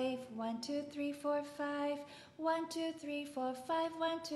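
A woman singing a counting warm-up, the numbers one to five sung over and over to a simple melody in short held notes. It is a theatre vocal warm-up exercise.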